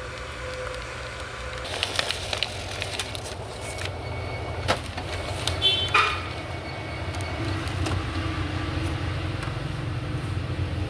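Epson L1110 ink-tank printer's mechanism, opened up and powered on: a steady low motor hum with several sharp clicks and knocks of its plastic parts as the carriage and paper path are handled.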